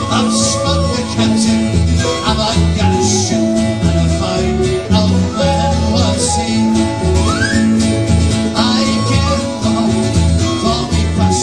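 A folk band playing a sea shanty, with acoustic guitar over a steady bass line.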